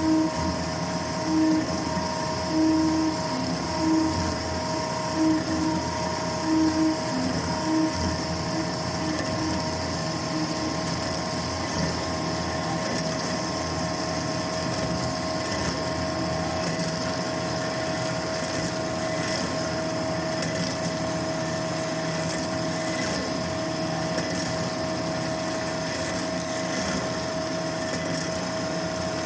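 Old horizontal metal-cutting bandsaw running, its blade cutting through thick-wall pipe with a steady whine. During the first several seconds a low pulse repeats about every second and a half, then the sound evens out.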